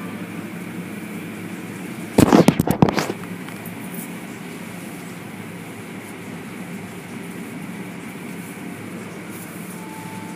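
Automatic car wash heard from inside the car: a steady rush of the wash machinery and water spray. A couple of seconds in there is a loud burst of rapid knocks against the car that lasts under a second.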